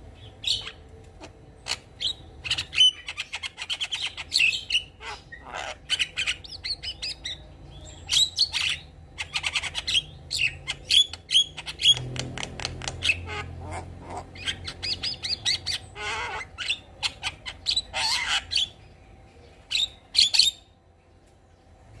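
Javan myna singing in full, varied song: harsh squawks, rapid clicking rattles and short whistled notes in quick bursts with brief pauses. It falls quiet near the end.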